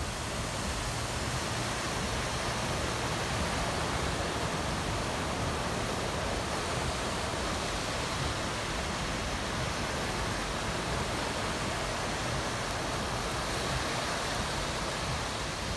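Steady rushing hiss of rain and floodwater on a flooded street, with cars driving through the standing water.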